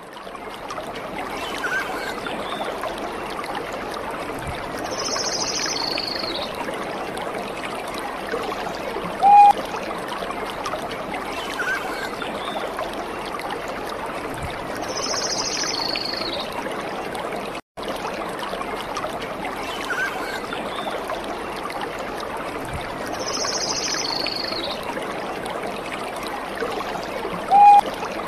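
Steady running water of a trickling stream, with occasional short high bird chirps and, twice, a louder brief whistled note. The same stretch repeats like a looped nature-ambience recording, and it cuts out for a moment about two-thirds of the way through.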